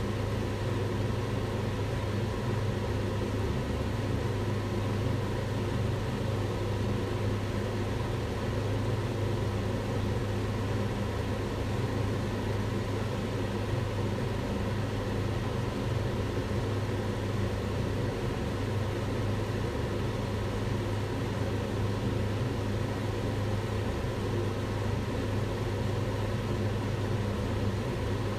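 Kitchen range hood fan running steadily: an even rush of air over a low hum, with no change.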